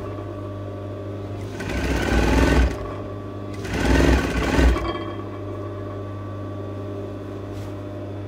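Sewing machine stitching a lining hem in two short runs, one about a second and a half in and one about three and a half seconds in, over a steady hum.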